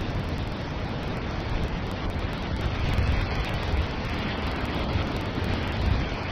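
Wind buffeting the microphone: a steady rushing hiss over an uneven low rumble.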